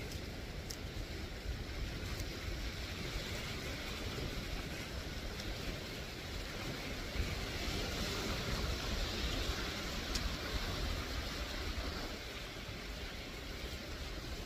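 Small waves breaking and washing over a rocky shore, with wind rumbling on the microphone; the surf grows a little louder around the middle.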